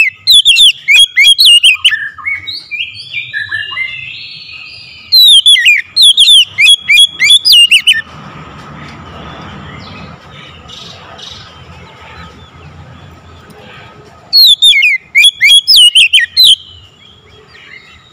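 Oriental magpie-robin (kacer) calling loud and hard: three bursts of rapid, sweeping up-and-down whistled notes, with a softer, lower warbling phrase after the first burst and a pause of about six seconds before the last.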